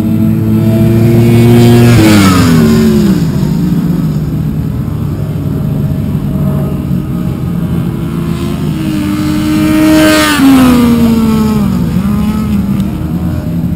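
Racing motorcycles passing at speed on a circuit: two loud pass-bys, about two seconds in and about ten seconds in, each engine note dropping in pitch as the bike goes by, with engine sound continuing between them.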